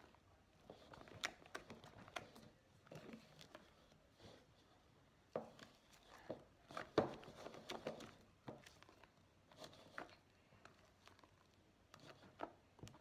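Spatula stirring glue and shaving cream in a plastic bowl: faint, irregular scraping and soft taps against the bowl, busiest about halfway through.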